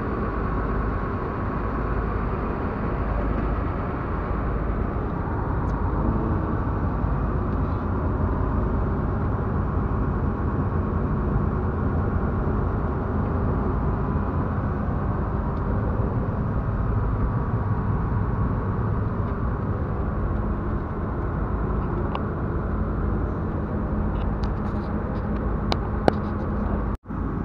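Fishing boat's engine running steadily while the boat is underway, a constant low rumble, with a short break near the end.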